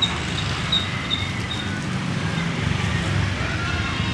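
Street traffic: a steady low rumble of passing cars and motorcycles, with a faint high ticking that repeats about three times a second through the first second and a half.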